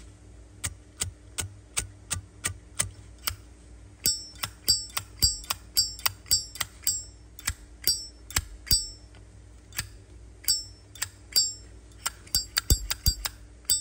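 A 1991 Zippo lighter's lid being flicked open and snapped shut over and over: sharp metallic clicks about two to three a second, many with a bright ringing ping from about four seconds in.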